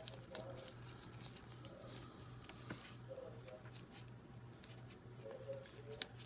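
Faint small clicks and scrapes of a tiny screw being turned into a diecast toy car to fix its fender on, with one sharper click near the end, over a low steady hum.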